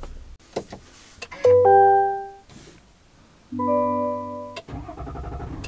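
Music: two sustained electric-piano chords, a different chord each time, the first about a second and a half in and the second about three and a half seconds in. A few light clicks come before them.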